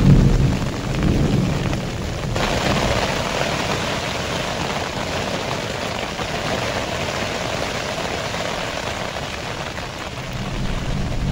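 Storm heard from inside a tent: a low rumble in the first two seconds, then a sudden switch to a steady hiss of rain on the tent, with the low rumble building again near the end.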